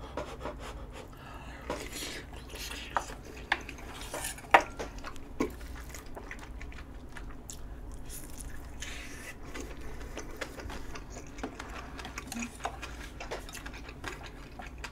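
Metal spoon and chopsticks clicking against bowls in scattered single taps, the loudest about four and a half seconds in, with chewing of rice and rolled omelette in between over a low steady hum.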